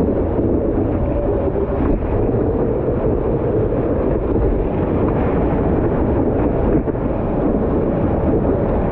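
Steady wind buffeting the microphone of a board-mounted camera, mixed with the rush of water along a stand-up paddleboard riding a small breaking wave.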